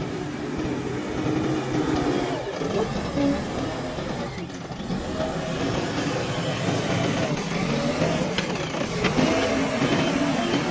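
JCB 3DX backhoe loader's diesel engine running under load, its note rising and falling as it works.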